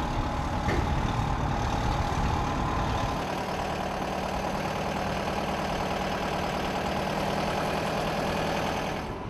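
Aircraft tow tractor's engine running steadily, with a steady higher hum over its low note.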